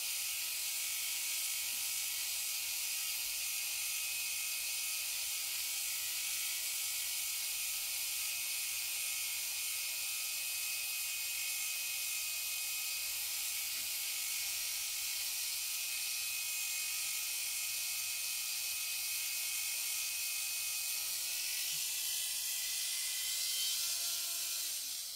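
Handheld rotary tool with a felt polishing bit running at a steady speed with a constant whine and hiss, as a die-cast car axle is held against the wheel to polish it with compound. The tool shuts off right at the end.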